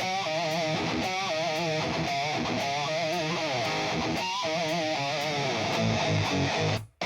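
Music: a clean electric guitar intro playing wavering, sustained notes. It cuts out briefly just before the end.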